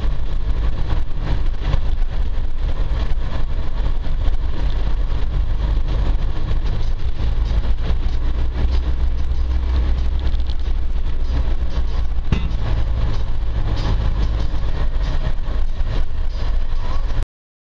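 Land Rover 4x4 driving along a rough green lane: a steady, loud rumble of engine and vehicle noise that cuts off suddenly near the end.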